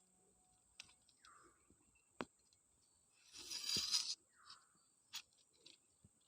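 Outdoor ambience with a steady high-pitched tone. Over it a bird gives a short falling call three times, and there are scattered light clicks. About three seconds in comes a loud rustling burst lasting about a second.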